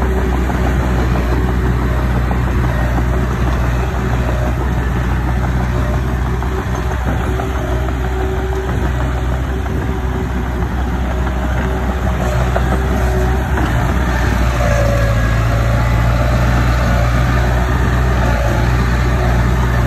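Diesel engine of earthmoving machinery running steadily, growing a little louder about two thirds of the way through.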